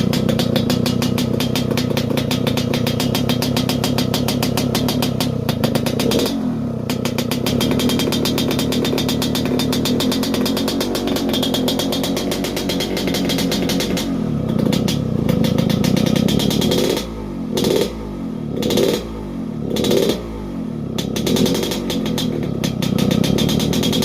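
Yamaha RX-King's two-stroke single-cylinder engine running through an underbelly 'ngorok'-style exhaust, with a fast, even, growling beat. In the second half it is revved in a string of four or five short throttle blips, the note dropping back between each.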